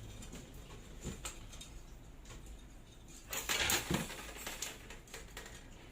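Small clicks and taps of parts being handled, with a louder scraping rustle about three and a half seconds in.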